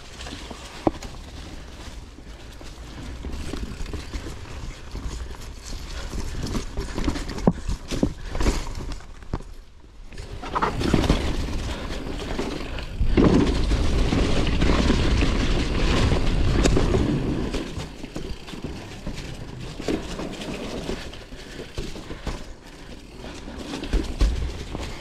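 Mountain bike riding over a leaf-covered dirt and rock trail: tyres rolling with a low rumble, and the chain and frame rattling and knocking over bumps. It is loudest for a few seconds around the middle.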